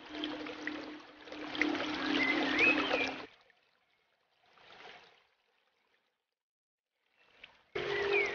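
Aquarium filter running: water trickling over a steady pump hum. It cuts out about three seconds in and comes back near the end.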